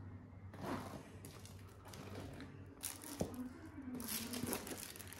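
Plastic shrink-wrap on a boxed firecracker pack crinkling as the box is handled and moved, in several irregular bursts, with one sharp tap about three seconds in.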